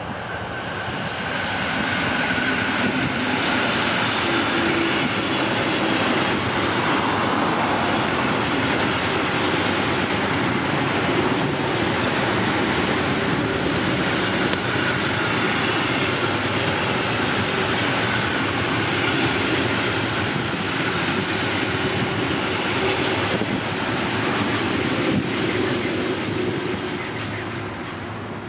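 Long freight train of hopper wagons rolling past: a steady din of wheels on rails that builds over the first couple of seconds and eases off near the end, with a faint steady whine from the wheels.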